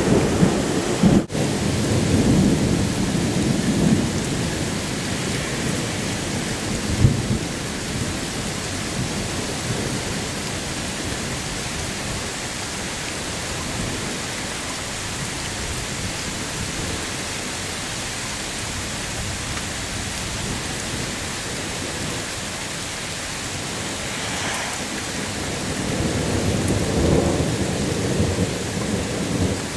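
Heavy rain pouring steadily during a severe thunderstorm, with low thunder rumbling in the first few seconds and again near the end.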